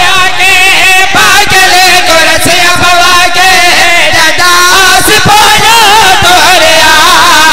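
A man singing a drawn-out mourning lament in long, wavering notes, over a steady beat of about two strikes a second.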